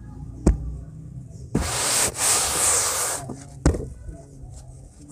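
Hands patting and pressing into dry cement powder: sharp pats about half a second, a second and a half and three and a half seconds in, with a loud rustling hiss of the powder being rubbed for about a second and a half after the second pat.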